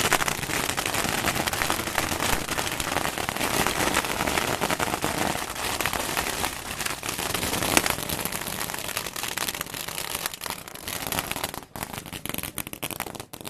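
Firecrackers going off in a dense, continuous crackle of rapid small bangs, thinning out with short gaps near the end.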